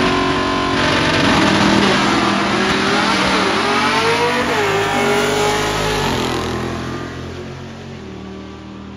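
Drag-racing car engines at full throttle down the strip, the pitch climbing and dropping back several times as the gears are shifted by hand, then the sound fading away over the last few seconds.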